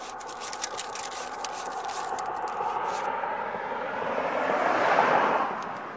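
A vehicle going by, its noise swelling to a peak about five seconds in and then fading. Rapid clicking over the first three seconds as a tape measure is reeled in and handled.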